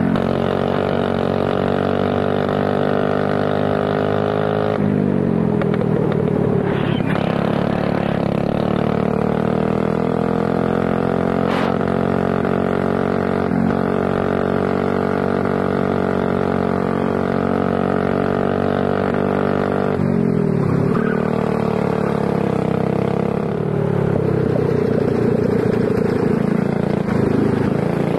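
Prototype racing kart engine heard onboard during a lap, held at high revs, then dropping sharply off throttle about five seconds in and again about twenty seconds in, each time climbing steadily in pitch as it pulls back up to speed.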